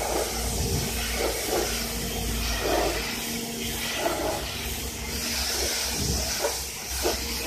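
Pressure washer spraying a jet of water against a car's lower door panels and sills, a continuous hiss as it rinses off wash foam. A steady hum runs underneath, with one tone dropping out about six seconds in.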